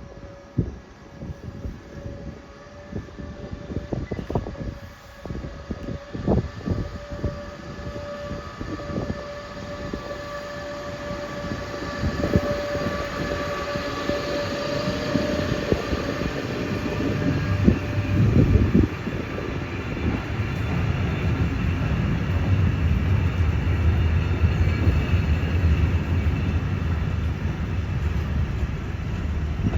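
A train running on the rails, with scattered clicks and knocks and a steady whine that fades out about halfway through. A low rumble then builds and the sound grows steadily louder.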